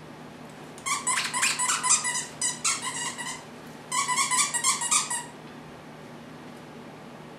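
Dog's squeaky toy squeezed rapidly over and over in two runs of loud, high squeaks, with a short pause between them.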